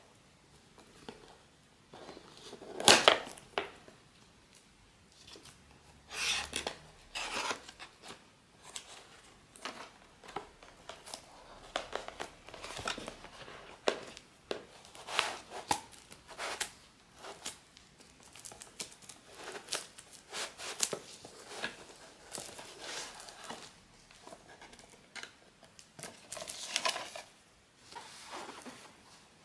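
Plastic shrink-wrap film being slit and peeled off a cardboard box, crinkling and tearing in short bursts, with the sharpest tear about three seconds in.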